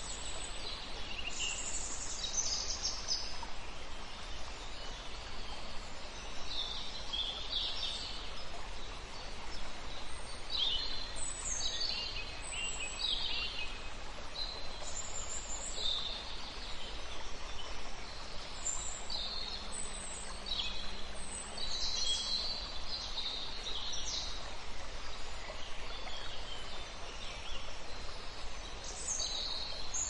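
Birds chirping: many short, high calls, one after another, over a steady low outdoor background noise.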